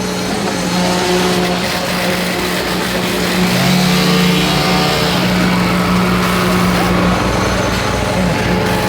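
Heavy truck engine running steadily and loudly, a constant hum, with a second lower tone joining about three and a half seconds in.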